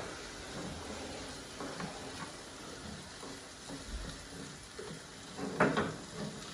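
Chickpeas, tomato and onion sizzling in a frying pan as a spoon stirs and scrapes through them, with small knocks of the spoon on the pan and a louder scrape about five and a half seconds in.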